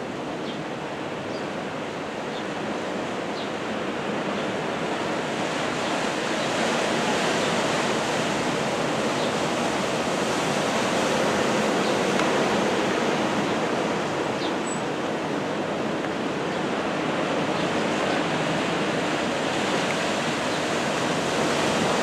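Steady rushing of surf and wind off a rough, whitecapped sea, growing a little louder over the first several seconds.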